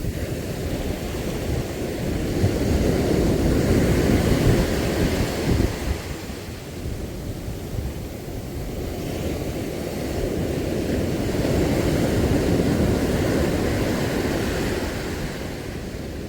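Wind and sea surf making a low rushing noise that swells and eases twice.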